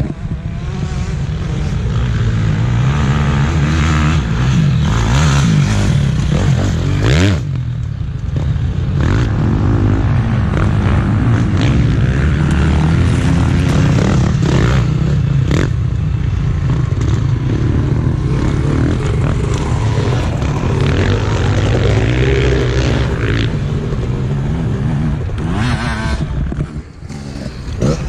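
Off-road motorcycle engines running and revving as dirt bikes ride through sand, the engine note rising and falling.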